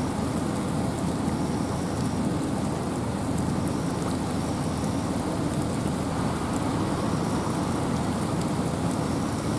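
Steady wind and rain in a forest: a constant deep rush with rain hissing over it and faint scattered drop ticks.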